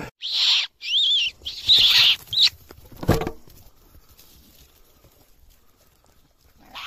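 Four shrill, wavering squeals in quick succession, high-pitched like a distressed rabbit or rodent, followed about three seconds in by a short thud.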